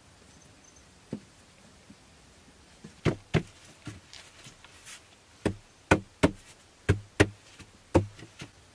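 Round wooden poles knocking against each other as they are laid into a pole floor. There is one light knock about a second in, then sharp knocks from about three seconds on, coming roughly every half second near the end.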